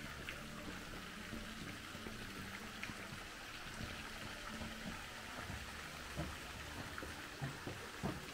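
Steady rush of running water, with a few light knocks near the end.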